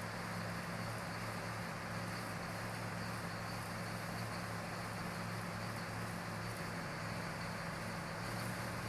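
Casagrande drilling rig's engine running steadily, a low even hum with a faint high hiss over it.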